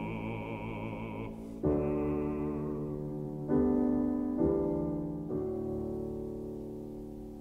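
Slow classical music with piano: sustained chords that change a few times, then ring on and fade away as the piece ends.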